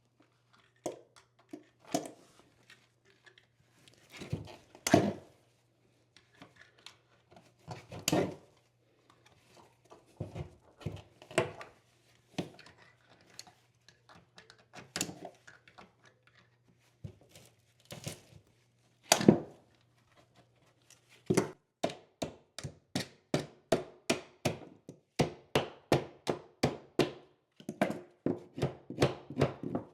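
Knocks and taps of a hand tool working on the subfloor, as a stuck screw or nail is freed. They come at irregular spacing at first, then from about two-thirds of the way in as a quick run of light taps, about three a second.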